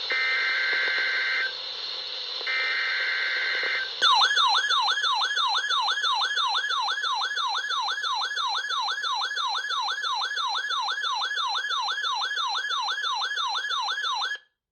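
NOAA Weather Radio SAME digital header bursts: two harsh buzzing data bursts of about a second and a half each, the encoded alert coding for a required weekly test. About four seconds in, an alert receiver's warbling siren starts, sweeping up and down about three times a second, then cuts off suddenly near the end.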